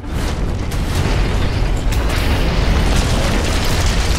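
Animated sound effect of a brick wall being smashed apart: a long heavy booming rumble with crashing debris, getting louder about a second in, with music underneath.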